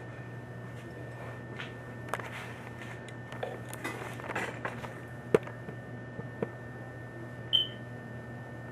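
Light handling noises, a few rustles and clicks with one sharper click about halfway through and a brief squeak near the end, over a steady electrical hum.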